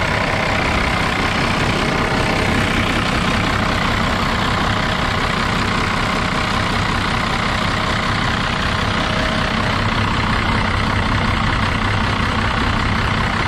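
12-valve Cummins 5.9 L turbo-diesel inline-six idling steadily, heard up close with the hood open.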